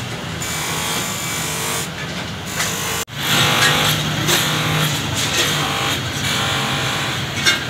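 Motor-driven polishing buffing wheel spinning on its spindle with a workpiece pressed against it: a steady whirring hum with a hiss of buffing. It starts abruptly about three seconds in, after a stretch of steady background noise.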